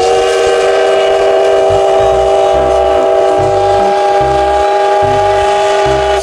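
Train whistle sounding one long, steady chord of several tones, over background music with a thudding beat.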